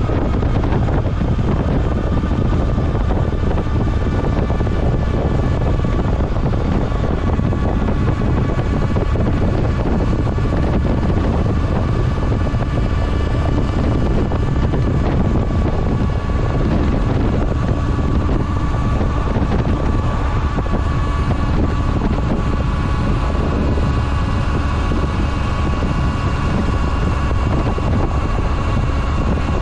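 Honda Nighthawk 750 motorcycle's inline-four engine running at a steady cruise, with a steady whine over a low rumble and heavy wind noise on the microphone.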